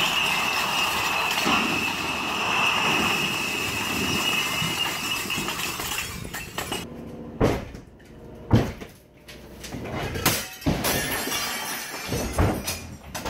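Pallets of empty glass bottles toppling from a forklift's load and smashing: a continuous crash of shattering glass for about six seconds, then scattered separate clinks and knocks as the last bottles fall and break.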